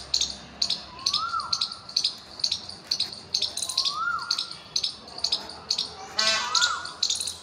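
Birds calling: a sharp high chirp repeated about twice a second, and a clear whistled note that rises then falls, heard three times. A short buzzy call comes about six seconds in.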